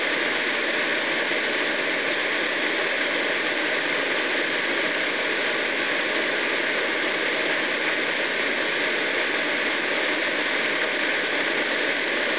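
Steady rushing of a 10 m waterfall close by, an even noise of falling water.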